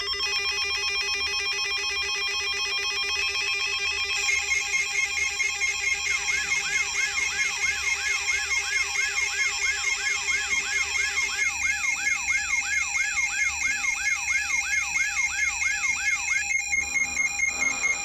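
Electronic emergency-alert tones: several steady beeping tones sound together, pulsing rapidly from about four seconds in, joined by a siren-like warble that sweeps up and down about three times a second from about six seconds in, until the tones cut off near the end.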